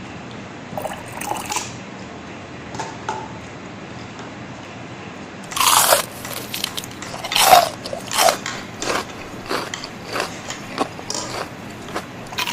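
Close-up crunching and chewing of crispy fried chicken: quiet at first, then from about halfway a run of loud, irregular crunchy bites and chews.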